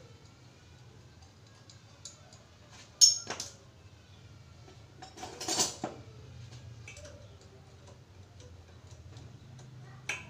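Hand tools and metal engine parts clinking while a Honda Supra X engine is taken apart by hand. There is a sharp clink about three seconds in, a longer rattle of clinks a couple of seconds later and another clink near the end, with small ticks between, over a faint steady low hum.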